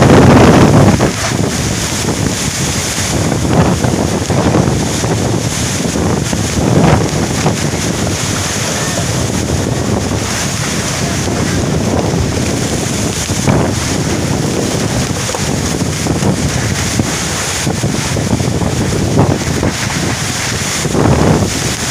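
Storm wind gusting hard with heavy rain, the gusts buffeting the microphone. The strongest gust comes right at the start, and further gusts swell every few seconds over a steady hiss.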